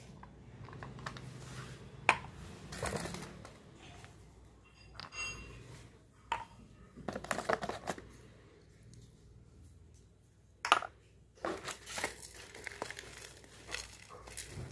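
Hands handling glass jars and packaged snacks in cardboard boxes: crinkling of plastic wrappers in several short stretches, with two sharp clicks of glass jars set down on a tiled floor, about two seconds in and near eleven seconds.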